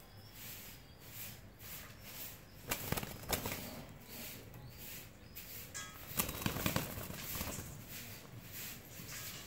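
Pigeon wings flapping and clattering in two short bursts, about three seconds in and again just past six seconds, the second burst longer.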